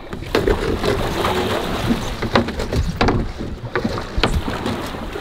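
A shark being hauled up the side of a fishing boat: splashing water with about half a dozen sharp knocks and thumps spread through.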